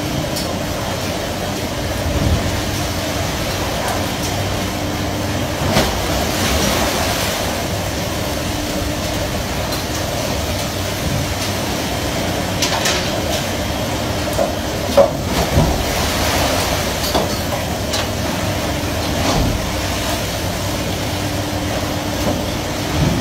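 Steady machinery rumble and rushing sea noise on a fishing vessel's working deck, with a few sharp metal knocks and clanks, the loudest about halfway through.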